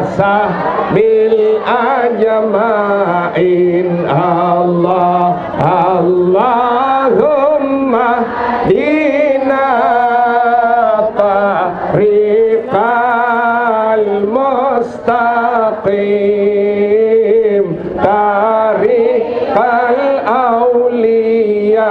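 A man chanting an Arabic devotional chant into a microphone, holding long, wavering notes that glide up and down.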